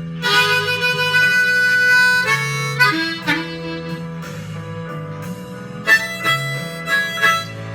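Blues harmonica fill between sung lines: long held notes and shorter phrases over a guitar's repeating bass line.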